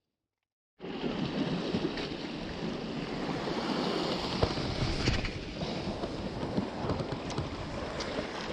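Sea surf and wind noise on the microphone, a steady rushing that starts abruptly about a second in, with a few light clicks.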